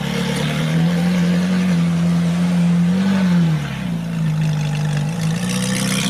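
Ferrari 458 Italia's V8 engine running steadily at low speed, with a brief rise and fall in engine pitch about three seconds in.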